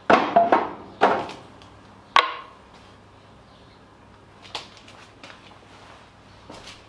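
A handful of sharp knocks of hard objects, each with a short ring: four loud ones in the first two and a half seconds, then a few fainter taps.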